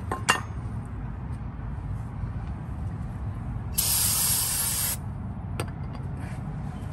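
Aerosol cleaner sprayed through a straw nozzle onto a brake caliper slider pin in one hiss lasting about a second, partway through. A couple of sharp clicks of metal parts being handled come near the start, the loudest sound here, with another click later.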